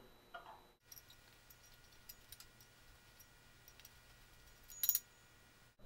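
Faint light clicks and taps of small paint-sprayer pump parts being handled, with one brief louder clatter about five seconds in.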